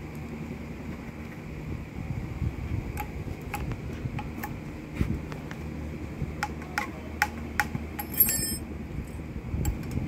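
Small sharp metallic clicks and taps from a hex key and fittings being worked on the pump head of a portable electric power sprayer. They come irregularly from about three seconds in, with a brief jingling rattle of loose metal parts a little after the middle, over a steady low hum.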